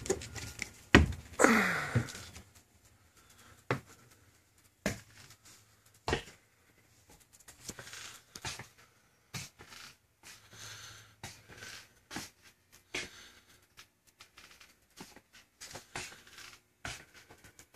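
Footsteps and hand-held camera handling inside a bus: scattered knocks and clicks, with a short sound falling steeply in pitch about a second in.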